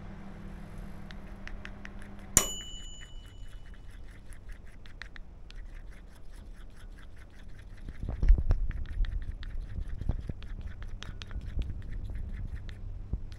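A sharp clink with a brief ringing tone about two seconds in, then a long run of small quick clicks and ticks of objects being handled, with low knocks and thumps from about eight seconds in.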